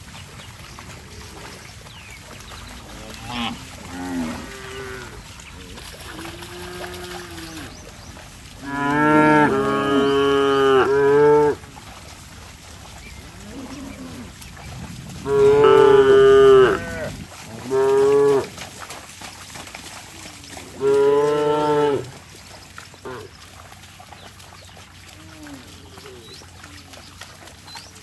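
Cattle mooing: several long, loud moos in the middle stretch, with fainter calls before them and a quiet rural background in between.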